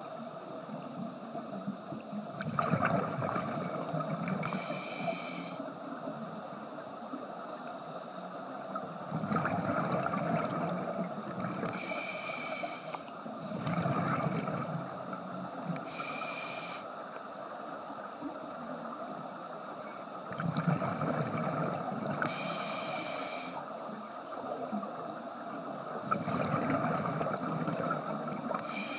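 Scuba diver breathing through a regulator underwater: a short hiss on each inhalation every few seconds, alternating with a longer bubbling rumble as the exhaled air vents.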